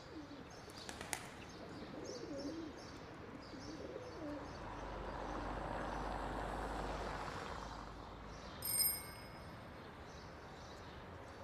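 Outdoor ambience with birds calling and a low, wavering cooing in the first few seconds. A rushing sound swells and fades in the middle, and a short, bright ringing tone sounds once near the end.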